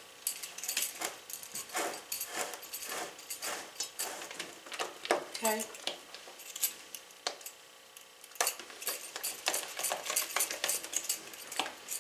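Spatula scraping and stirring thick cake batter around a metal mixing bowl by hand, with irregular scrapes and light taps against the bowl. The scrapes ease off briefly a little past halfway, then pick up again.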